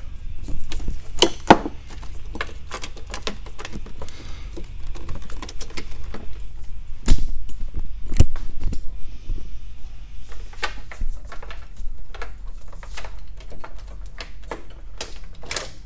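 Plastic and metal parts of a Ford Escape Hybrid battery pack being handled: a dense run of clicks and clatter with several louder knocks, the loudest about seven seconds in, over a steady low hum.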